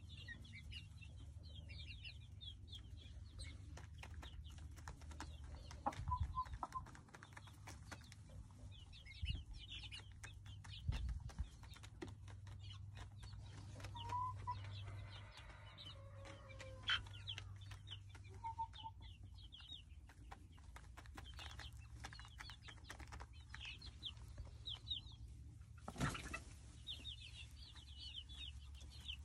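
A flock of young barred chickens peeping with many short high chirps, with a few lower clucks, over a steady low rumble. A knock sounds about 26 s in.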